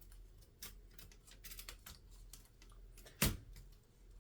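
Light scattered clicks from the mechanism of a 1961 Groma Kolibri N portable typewriter as its parts are handled, with one sharp clack a little over three seconds in.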